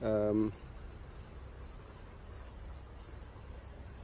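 Steady, high-pitched insect trill, typical of crickets, running unbroken, with a brief low vocal murmur right at the start.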